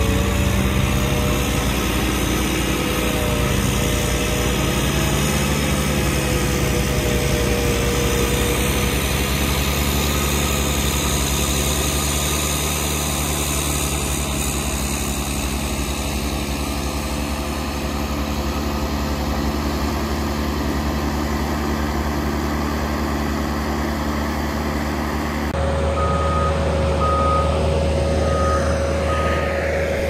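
Prinoth SW4S tracked sidewalk tractor running steadily with its front snowblower throwing snow. Near the end the sound changes abruptly, a steady tone sets in and a backup alarm beeps repeatedly.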